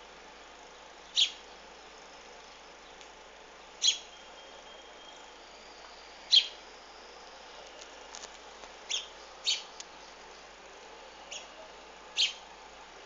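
Short, sharp single bird chirps, about seven of them spaced one to three seconds apart, over a steady faint hiss.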